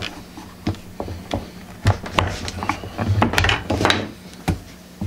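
Heavy copper strip being bent and pressed by hand around a wooden template with a wooden-handled tool: scattered sharp clicks and taps of metal on wood, with a stretch of denser scraping about halfway through.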